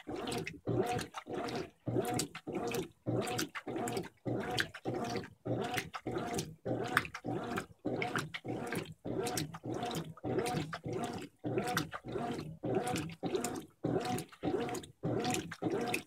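Brastemp 15 kg top-load washing machine agitating a tub full of water and laundry: the agitator strokes back and forth about twice a second, each stroke a short motor hum with water churning, with brief pauses between strokes.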